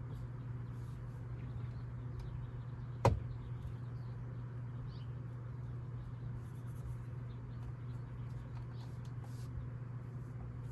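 A steady low hum with one sharp click about three seconds in and scattered faint ticks, from hands-on work fitting a steering wheel in a car.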